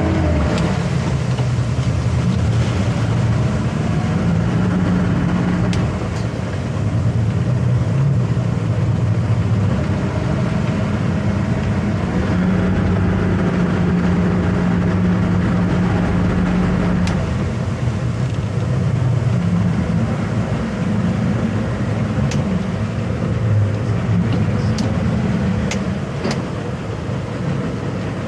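Twin outboard motors running in gear, churning prop wash as the towboat holds against another boat; their low drone shifts up and down in pitch with throttle changes. A few sharp ticks come through in the second half.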